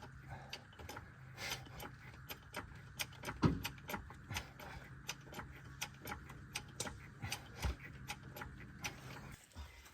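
Faint, irregular clicks and knocks, about two or three a second, over a low steady hum.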